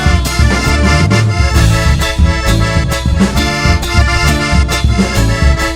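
Chamamé band playing: accordion carrying the melody over a steady rhythmic bass and guitar accompaniment.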